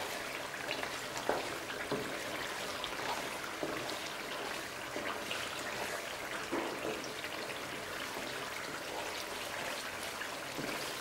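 Semolina halwa bubbling and sizzling in hot ghee in a wok, slowly stirred with a wooden spoon, with scattered small pops. The ghee is separating out of the halwa and bubbling at the surface.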